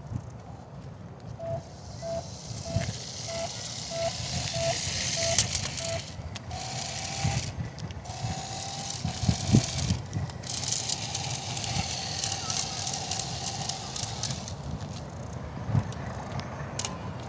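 Toy RC drift car running: a high hiss of its electric motor and spinning wheels that starts and stops in spells, with scattered light knocks. A run of about nine short electronic beeps comes in the first few seconds, followed by longer held beeping tones.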